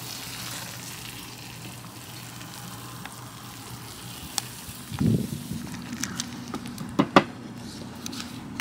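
Food sizzling as it fries in a pan. A low thud comes about five seconds in, and a few sharp clicks follow near the end.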